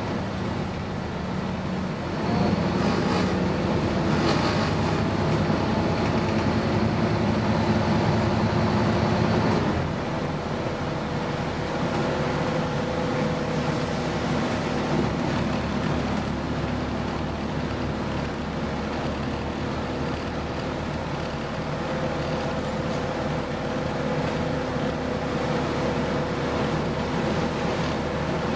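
Scania N230UD double-decker bus heard from the upper deck while driving, its five-cylinder diesel engine and road noise running steadily. It gets louder about two seconds in, then drops to a quieter, steadier run with a thin whine about ten seconds in.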